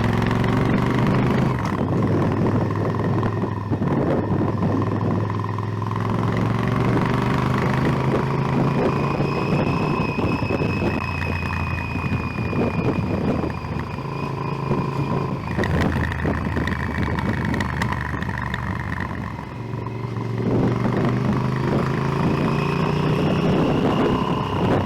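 Motorcycle engine running on the move, its pitch rising and falling several times as the rider accelerates and eases off.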